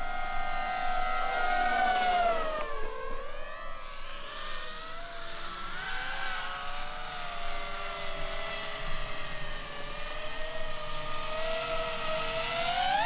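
DJI FPV drone's motors and propellers whining in flight, the pitch sliding up and down with the throttle. It dips a few seconds in and climbs sharply near the end.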